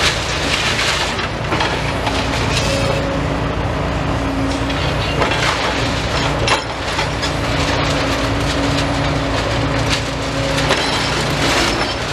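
Demolition excavator's diesel engine running steadily while its attachment crunches through the building, with irregular cracking and splintering of debris.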